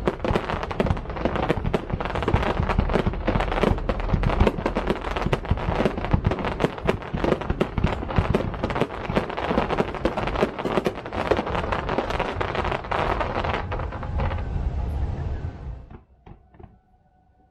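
Aerial fireworks bursting in rapid, dense succession, with many sharp crackles over low booms. The barrage stops suddenly about sixteen seconds in, leaving only a faint steady hum.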